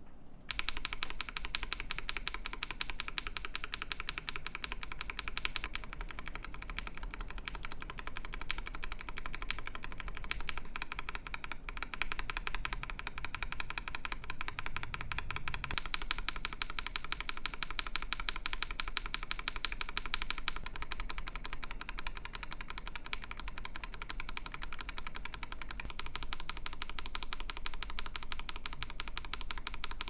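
Continuous fast typing on a mechanical keyboard fitted with stock tactile switches, heard as a dense stream of keystrokes. It is Akko CS Ocean Blue switches at first, then Glorious Panda switches partway through.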